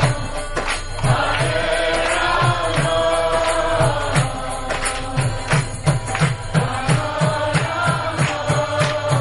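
Kirtan: voices chanting a devotional Hindu mantra over a steady drum beat of about three beats a second, with sharp percussive strokes over it.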